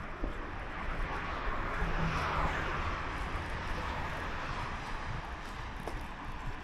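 A motor vehicle passing by on the street, its noise swelling to a peak about two seconds in and then fading away, over steady outdoor street ambience.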